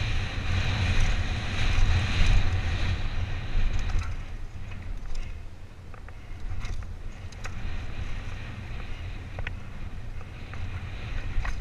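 Wind buffeting a helmet-mounted camera's microphone and the noise of the tyres on a downhill mountain-bike trail. It is heaviest over the first four seconds, then eases, with scattered sharp clicks and rattles from the bike over rough ground.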